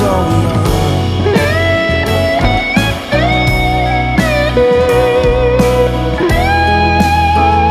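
Background song in an instrumental passage: a lead guitar plays long held notes that slide up into pitch and waver with vibrato, over a steady bass and beat.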